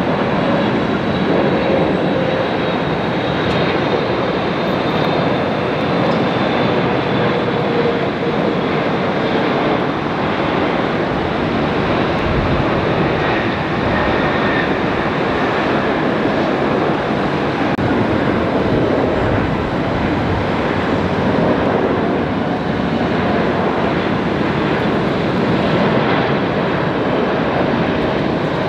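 Jet engine noise of two landing airliners, first a Boeing 777 and then a Boeing 747 freighter: a steady, loud jet noise. A faint whine falls slowly over the first third.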